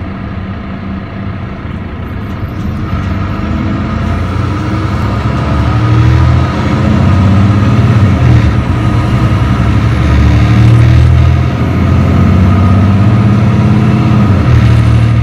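Mercedes-Benz O530 Citaro C2 G articulated bus's OM936h straight-six diesel at full throttle in kickdown through its Voith D864.6 automatic gearbox, growing louder over the first six seconds and then holding loud with two brief dips. Its recorder says this engine no longer sounds healthy.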